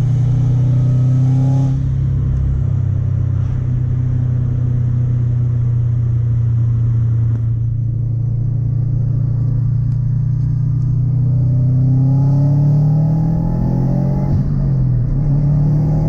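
Turbocharged Subaru Impreza WRX STI's engine and road noise heard from inside the cabin while cruising at highway speed, a steady drone. About twelve seconds in the revs climb for a couple of seconds, then drop back.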